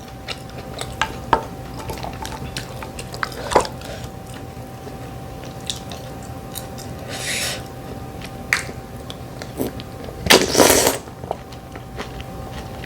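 Close-up eating sounds of a person eating mussels: chewing, with scattered light clicks of shells and utensils, a short noisy burst midway and a louder one about ten seconds in.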